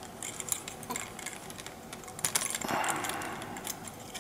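Small clicks and rubbing of plastic parts being handled as a tiny quadcopter motor and its thin wire are worked out of the clear plastic duct of the frame, with a louder scraping rustle about two and a half seconds in.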